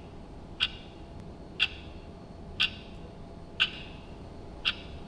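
Kit-Cat wall clock ticking, one sharp tick about every second, over a low steady room hum.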